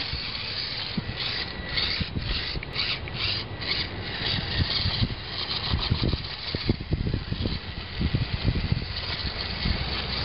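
Losi Mini Rock Crawler's small electric motor and gearbox whirring in short bursts as it climbs granite rock, with its tyres scraping on the stone. Irregular low rumbling thumps fill the second half.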